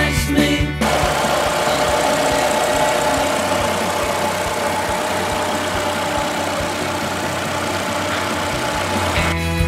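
Chevrolet Tornado's 1.8-litre four-cylinder petrol engine idling steadily, heard with the hood open. Background rock music stops under a second in and comes back near the end.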